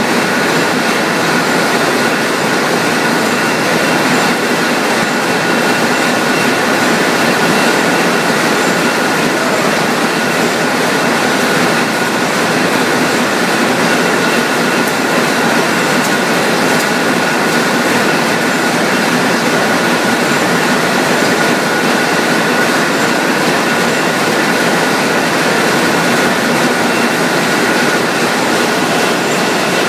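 Wire drawing machinery running: a loud, steady mechanical din with a steady high whine through it.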